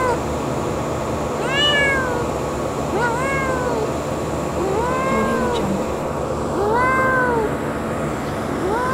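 Young tabby kitten meowing repeatedly: about five short meows, each rising then falling in pitch, spaced roughly every one and a half to two seconds, over a steady background noise.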